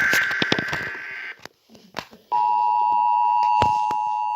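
Emergency Alert System broadcast: the end of a warbling digital SAME header data burst, a short gap with a few clicks, then the steady two-tone EAS attention signal starting a little over two seconds in and holding.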